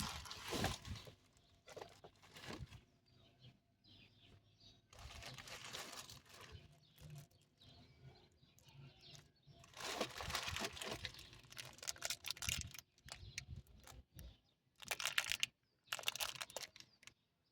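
Packaging being opened by hand: spells of tearing and crinkling plastic and cardboard, separated by quiet pauses.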